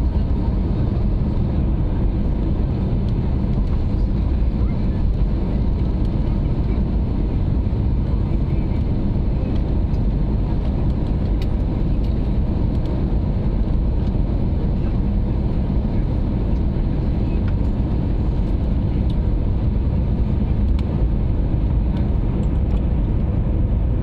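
Steady cabin noise of an Airbus A330 on final approach: a low, even rumble of the engines and rushing air, heard from inside the cabin.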